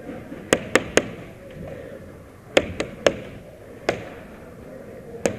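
Single airsoft shots, sharp cracks in irregular groups: three quick ones about half a second in, three more a couple of seconds later, then two spaced singles.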